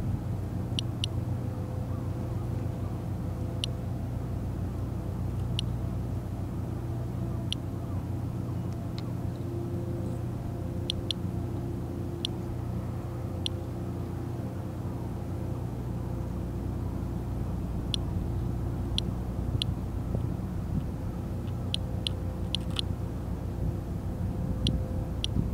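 Radiation Alert Inspector+ Geiger counter clicking at random intervals, roughly one count every second or so, sometimes two or three close together, as it counts low background radiation of about 0.14 to 0.17 µSv/h. A steady low engine hum runs underneath.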